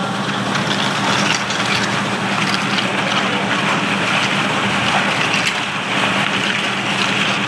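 Concrete mixer truck's engine running steadily, a constant low hum under a broad, even rumble of noise.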